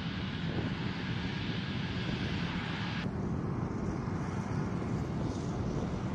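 KC-135 Stratotanker's four CFM F108 turbofan engines at takeoff thrust as the tanker rolls down the runway and lifts off: a steady, dense rumble. About three seconds in the higher hiss drops away.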